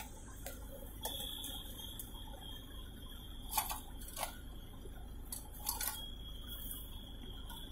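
Soft, scattered clicks of buttons being pressed on a handheld odometer-programming tool's keypad, over a faint steady high-pitched whine that starts about a second in, drops out for a while and comes back.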